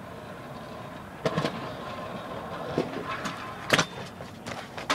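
Stunt scooter rolling on a hard surface, its wheels giving a steady rolling noise with a faint hum, broken by several sharp clacks as the scooter strikes the ground.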